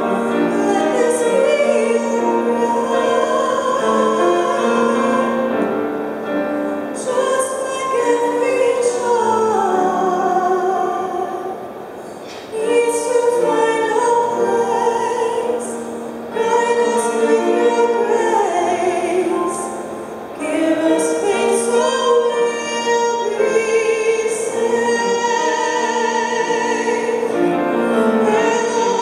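A woman singing a slow ballad into a microphone with piano accompaniment, her held notes amplified through the church's sound system, with short breaks between phrases.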